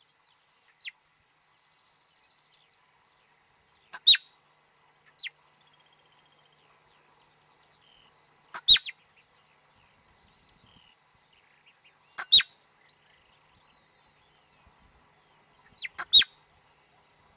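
Marmot whistling calls: short, sharp, high-pitched whistles repeated about every four seconds, four in all, often with a fainter note just before. This is the marmot's typical alarm call. Faint bird chirps sound between them.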